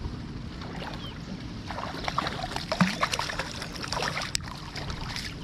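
Steady low wind-and-water rumble on a fishing boat, with a run of small clicks and rattles in the middle.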